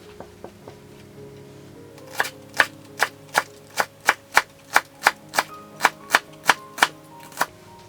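Kitchen knife chopping on a cutting board in a steady run of about fifteen sharp strokes, roughly three a second, starting about two seconds in and stopping near the end, over background music.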